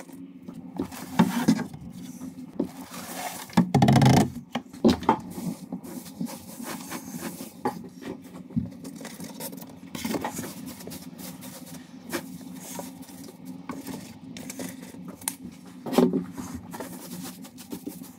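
A gloved hand digging and scooping through dry beetle bedding, making rustling and scraping with a few louder knocks about a second in, around four seconds and near the end. A steady low hum runs underneath.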